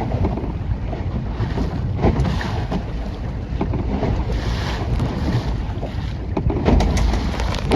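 Wind buffeting the microphone over water rushing and hissing along a Mirror 16 dinghy's hull as it sails close to the wind in a force 4 to 5 breeze, with the hiss surging every second or two. A few sharp slaps near the end.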